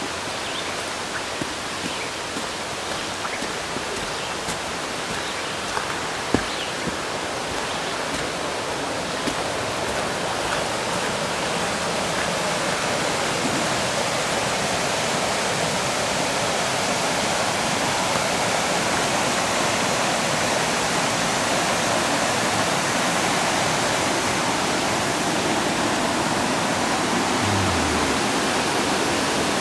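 A rushing forest stream over rapids makes a steady roar of water that grows louder over the first half and then holds. Light footsteps on the trail tick through the first part, with one sharper knock about six seconds in.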